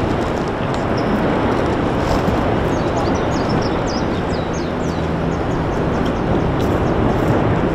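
Steady rushing roar from the erupting Fissure 8 lava vent and flow, with a faint low hum under it and scattered short, high chirps and clinks above it.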